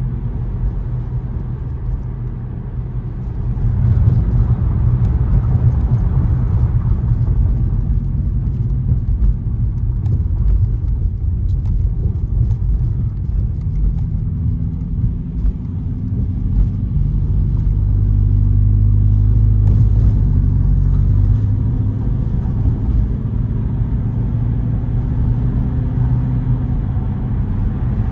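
A car being driven: steady low road and engine rumble, growing louder about four seconds in and again a little past the middle.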